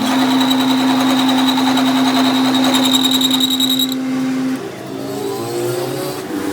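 Lathe running with a steady hum and a high-pitched whine from its motor and gearing. The hum and whine cut off about four and a half seconds in, leaving a quieter, shifting sound.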